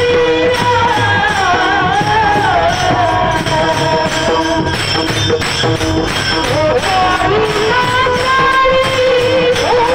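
A man singing a high, drawn-out alaap in a Varkari bhajan, his voice sliding and wavering over a held tone, accompanied by a steady beat of small hand cymbals.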